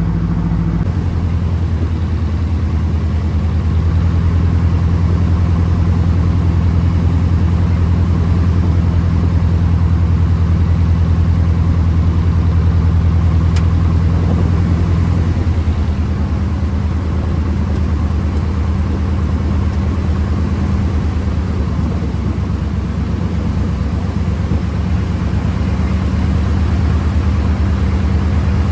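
Piper PA-18 Super Cub's piston engine and propeller droning steadily, with a shift in engine note about a second in and again about halfway through.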